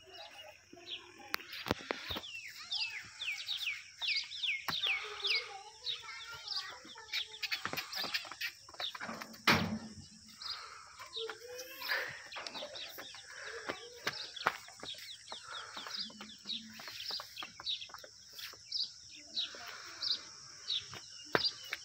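Farmyard birds calling: runs of quick, high, falling chirps with chicken clucking among them, over a steady high hiss and a few scattered knocks.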